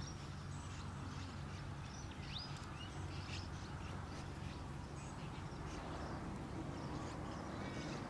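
Faint outdoor ambience: a few brief, high, thin bird chirps, one about two and a half seconds in and a few more near the end, over a steady low hum.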